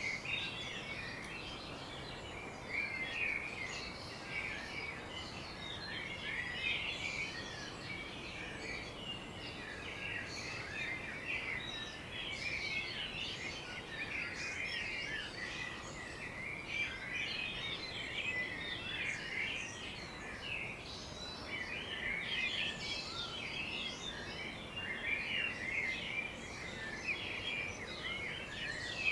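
Many garden birds chirping and singing at once in a dense morning chorus: overlapping short chirps and trills, with a faint steady background hiss.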